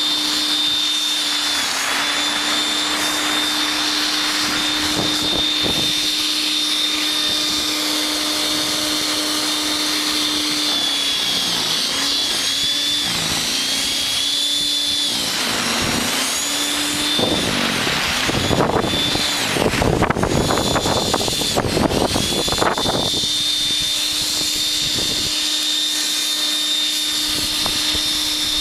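WEN 5662 13.5-amp electric snow thrower running with a steady motor whine. Around the middle its pitch sags a few times as it takes load, and about two-thirds in it bogs into a louder, rough churning rush for several seconds as the auger chews through snow, then settles back to a steady whine.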